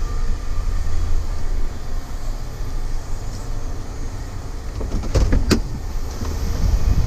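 Motor vehicle running with a steady low rumble. A couple of sharp clicks or knocks come about five seconds in.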